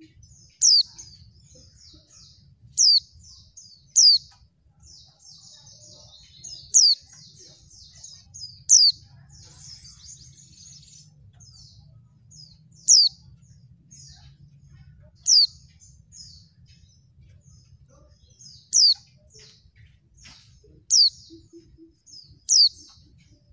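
Female white-eye (pleci) calling: about ten loud, sharp notes that fall in pitch, spaced every one to four seconds, with soft twittering between them.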